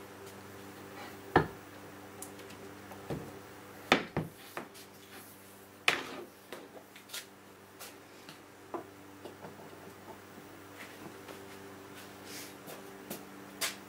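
Handling noises: a few sharp knocks and light clatter as a router's power cord and plug are handled and dragged across a plywood bench top, over a faint steady hum. The router itself is not running.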